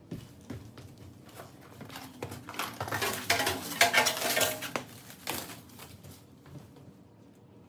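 Foam packing sheets and bubble wrap rustling and crinkling as they are pulled out of a metal grill body, mixed with light clinks and knocks of metal parts. The handling is busiest and loudest in the middle and dies away near the end.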